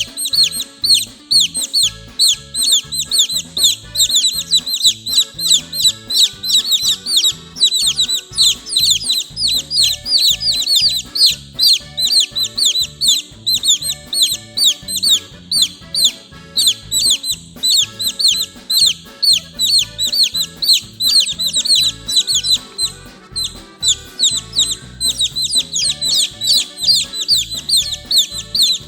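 A flock of young chicks peeping continuously: many rapid, high, downward-sliding chirps overlapping, over background music.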